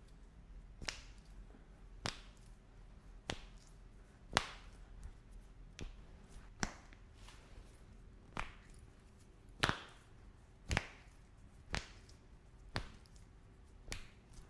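About a dozen sharp slaps or taps, roughly one a second and not quite evenly spaced: a hand striking the body during chiropractic treatment.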